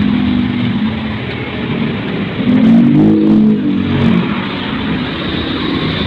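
Street traffic, with a motor vehicle's engine passing close and rising then falling in pitch, loudest about halfway through.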